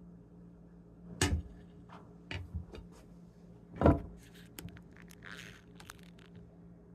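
Handling knocks and clicks, two louder thumps about a second in and just before four seconds, with lighter clicks and a brief rustle, over a low steady hum.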